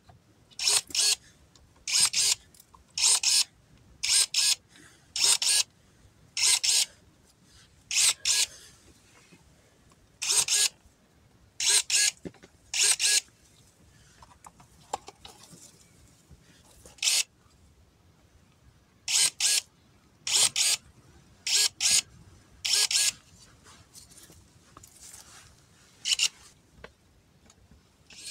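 Short, hissing scraping strokes, roughly one a second in runs broken by pauses of a few seconds, each a brief rasp of a tool against a rough surface.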